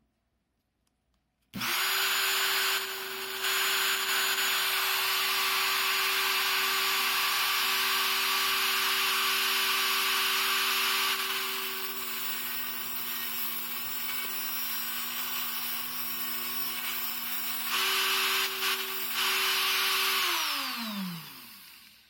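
Cordless rotary tool with a cut-off wheel switches on about a second and a half in and runs at a steady high speed, grinding the crown and a slot into the tip of a metal handcuff key, with the grinding sound changing as the key is pressed to the wheel. Near the end it is switched off and its pitch falls as the wheel spins down.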